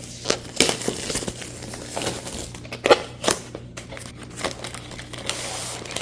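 Packaging being unwrapped by hand: crinkling and rustling with scattered sharp clicks, and a longer stretch of rustle near the end.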